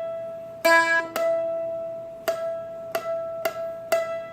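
Seagull Merlin, a small four-string dulcimer-style instrument, picked note by note. About six plucks ring out over a steady sustained drone string.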